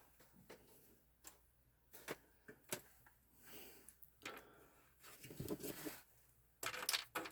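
Scattered small clicks, taps and rustles of hands handling the parts of a partly dismantled computer while looking for a missing screw, with busier clatter about five seconds in and again near the end.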